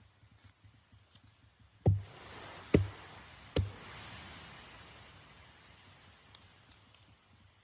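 Three sharp knocks a little under a second apart, a knife striking a coconut to hack it open, with a few lighter clicks before and after.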